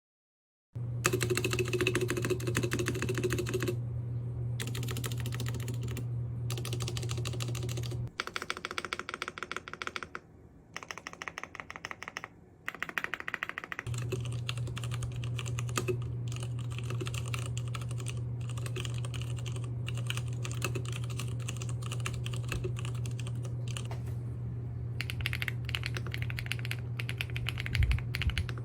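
Fast, continuous typing on a mechanical keyboard: dense clacking keystrokes over a steady low hum. From about 8 to 14 seconds the typing is quieter and thinner and the hum drops out, then both return.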